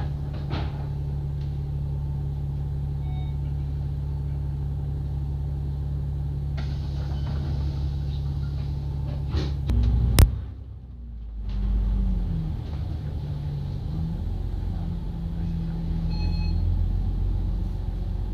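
Double-decker bus engine running steadily, heard from on board. About ten seconds in there is a sharp click and a brief dip, after which the engine note rises and falls as the bus moves on.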